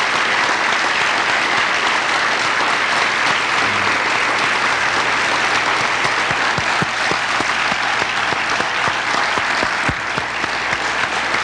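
Audience applauding steadily at the end of a talk. Sharper, closer hand claps stand out in the second half, from the speaker clapping back at the microphone.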